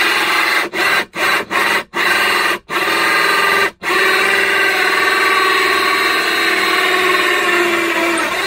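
Stanley FatMax cordless drill turning a hole saw through a board, the teeth rasping over the motor whine. For the first four seconds the trigger is pulsed in short stop-start bursts; after that the drill runs steadily as the saw cuts on through.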